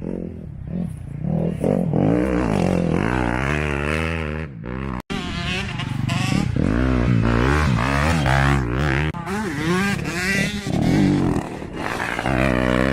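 Dirt bike engine being ridden hard, its pitch repeatedly climbing as it revs and dropping back as it shifts or rolls off the throttle. The sound cuts out for an instant about five seconds in.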